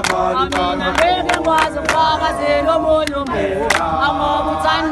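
Group of young men singing an igwijo (a South African communal chant-song) together unaccompanied, clapping hands irregularly along with it.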